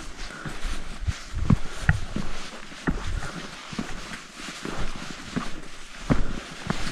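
Hikers' footsteps on a mountain trail: uneven thuds and scuffs, about one or two steps a second.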